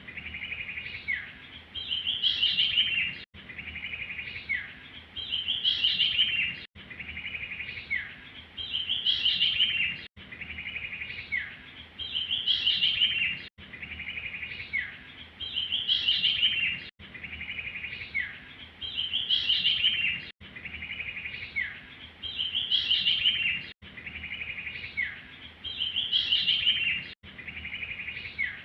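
A recorded songbird call played as a bird-trapping lure and looped over and over, about eight times. Each repeat is a fast trill of high chirps, a short falling note and a louder rising-and-falling phrase, then the loop cuts and starts again.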